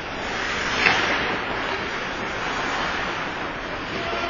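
Ice hockey play in an arena: a steady hiss of skates on ice and echoing rink noise, with one sharp crack a little under a second in.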